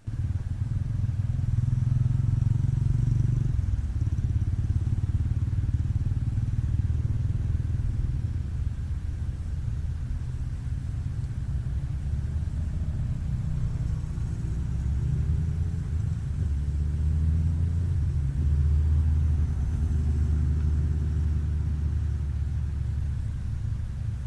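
Motorcycle engine running on the move, a steady low rumble whose pitch rises and falls a few times in the middle as the revs change.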